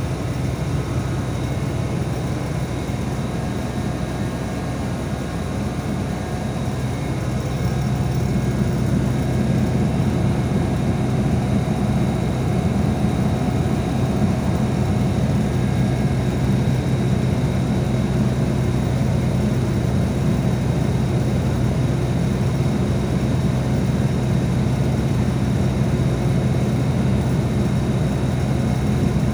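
Steady low drone of a city bus's engine idling, heard from inside the passenger cabin; it grows a little louder about eight seconds in.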